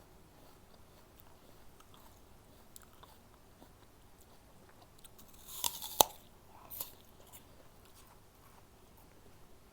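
A bite into a crisp apple: a sharp crunching snap a little past halfway, followed by a second, smaller crunch, with faint chewing clicks around it.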